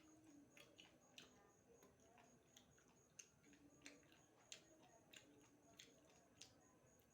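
Faint eating sounds: soft irregular clicks and smacks of chewing, about two a second, against a very quiet room.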